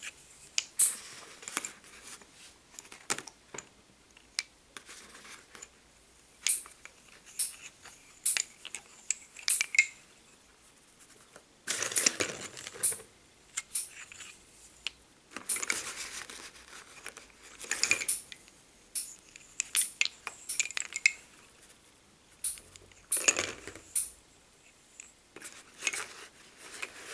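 Lace bobbins clicking and clattering against one another in irregular flurries as pairs are crossed and twisted while working bobbin lace, with quieter gaps between.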